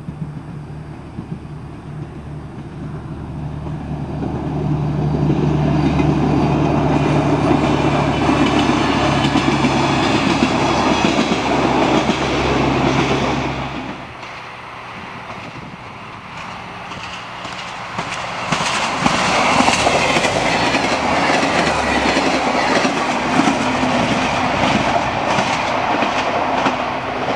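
A diesel railcar approaches and passes with a steady engine hum that grows louder and then cuts off about 14 seconds in. A second passenger train then passes, loud wheel clatter over the rail joints rising from about 18 seconds and staying loud to the end.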